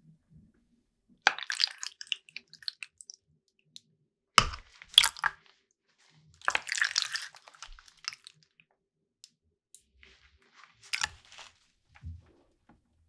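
Cooked tapioca pearls being handled in a glass bowl, heard close up as several separate bursts of sticky clicking with pauses between them.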